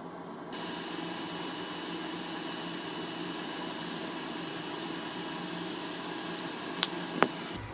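Electric fan running with a steady whirring hum, cutting in about half a second in. Near the end come two sharp clicks about half a second apart, the second louder.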